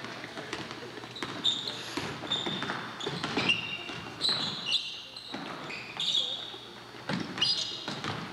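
Basketball game sounds echoing in a gym: the ball bouncing on the court, brief high sneaker squeaks on the floor several times, and crowd chatter throughout.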